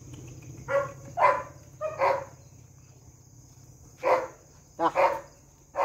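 A dog barking in short, sharp barks, about seven in small clusters, over the steady high chirring of crickets.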